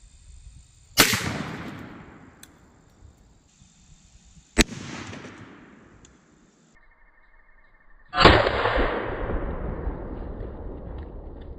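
Three .410 bore shotgun slug shots, about three and a half seconds apart, each a sharp bang that echoes and dies away over a second or more; the last has the longest tail.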